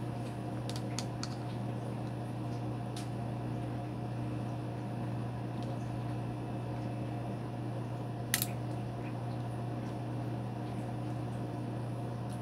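Faint small metal clicks of pliers working parts inside a Beretta 92FS pistol frame, with a sharper click about eight seconds in, over a steady low hum.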